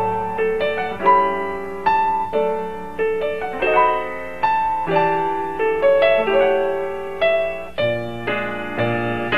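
Solo piano accompaniment: a light melody over chords, struck notes ringing and fading, a new note every half second or so.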